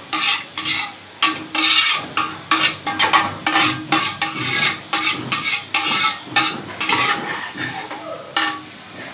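Perforated metal spoon stirring raw rice through water in a metal pot, scraping along the bottom and sides in repeated strokes about two a second. The strokes stop about a second before the end.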